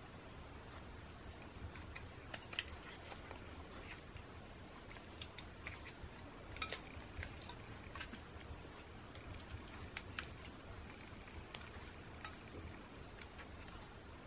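Faint, irregular small clicks and taps of plastic and metal parts of a disassembled Canon PowerShot SD3500 IS camera being handled, as its new LCD's flex cables are worked through the frame, with a brief cluster of sharper clicks about halfway through.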